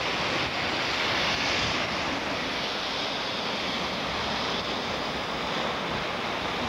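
A river in high flow rushing over rapids: a steady rush of turbulent whitewater.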